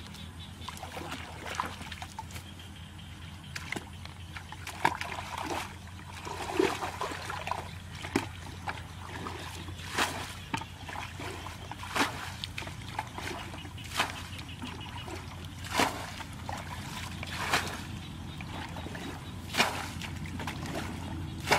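Muddy ditch water being bailed out with a plastic bucket: each bucketful scooped and thrown out with a splash, about every two seconds in the second half, with sloshing and trickling water between.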